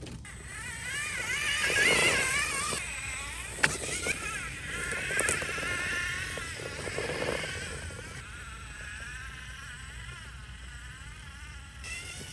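Whine from a 1/10 scale RC rock racer's brushless motor and geartrain, its pitch wavering up and down with the throttle as the truck crawls over rocks. It is loudest about two seconds in, and there are sharp knocks a little after three and a half seconds and after five seconds.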